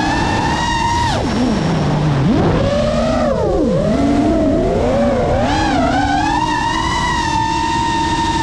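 GEPRC Mark 5 FPV quadcopter's brushless motors and propellers whining over steady wind noise. The pitch falls sharply about a second in as the throttle is cut, then climbs and wavers with throttle changes before holding steady and high near the end.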